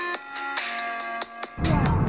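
Electronic background music: held synth notes over a ticking beat, with heavy bass and drums coming in about one and a half seconds in.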